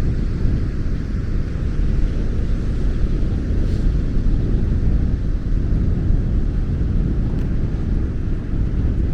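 Strong sea wind buffeting the camera microphone: a continuous, gusting low rumble, with the hiss of North Sea surf underneath.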